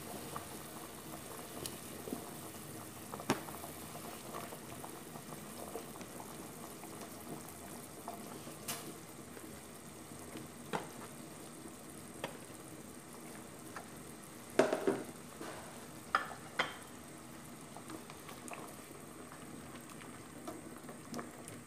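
Pork-bone broth simmering in a stainless steel pot, a steady bubbling hiss, broken by scattered short plops and knocks as chunks of taro are dropped in, the loudest cluster about two-thirds of the way through. Near the end a ladle stirs the soup.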